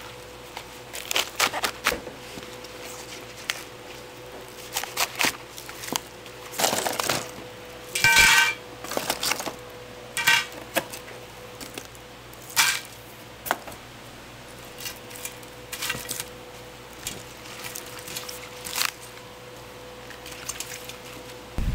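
Restaurant kitchen clatter: dishes and utensils clinking and knocking at irregular moments, with a couple of ringing clinks partway through. A faint steady hum runs underneath.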